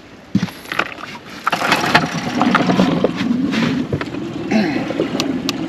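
Small outboard motor on an inflatable boat running at low speed in reverse, with a row of sharp clicks near the end.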